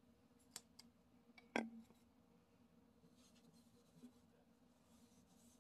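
Near silence broken by a few faint clicks and light knocks, the loudest about a second and a half in, as a wooden bowl is handled on a workbench and fingers rub oil into it.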